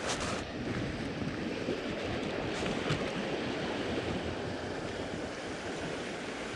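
Steady rush of flowing creek water close to the microphone, with a brief hiss in the first half second.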